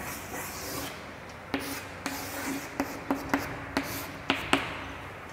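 Chalk drawing on a chalkboard: soft scraping with a run of sharp taps as the chalk strikes and lifts off the board, about eight of them between one and a half and four and a half seconds in.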